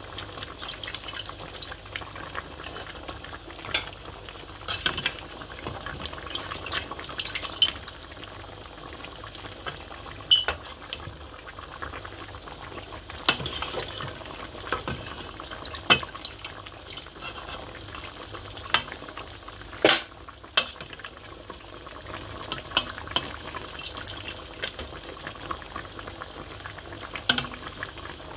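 A pot of meat stew boiling on a gas hob: a steady bubbling simmer with irregular sharp pops and clicks, the loudest around ten, sixteen and twenty seconds in.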